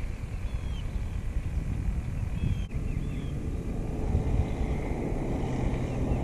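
Low wind rumble over open water, with a few faint, short high chirps, likely birds, in the first half. About halfway through, a low, steady engine hum from a distant motor joins it.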